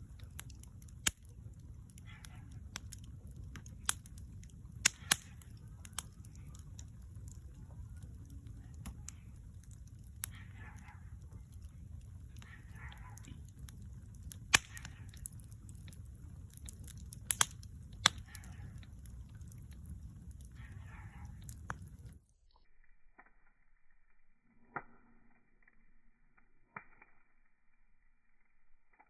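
Wood campfire crackling, with sharp irregular pops over a steady low rumble. About 22 seconds in the sound cuts off abruptly to a much quieter, thinner recording with only a few faint clicks.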